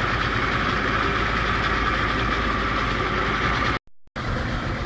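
A small boat's outboard motor running steadily at low speed, a low hum with a steady hiss over it. The sound cuts out completely for a moment just before four seconds in, then carries on unchanged.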